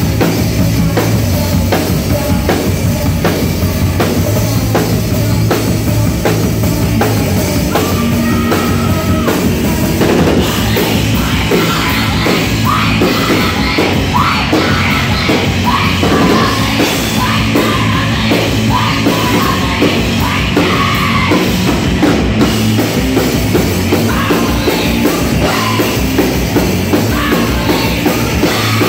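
Loud live rock band playing: electric guitars and a drum kit hit hard with a driving, steady beat, the sound filling out about ten seconds in.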